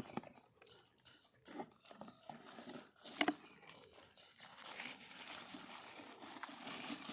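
Packaging of a Bluetooth speaker being handled during unboxing: scattered clicks, knocks and rustling, with one sharper, louder sound about three seconds in and a steadier rustle near the end.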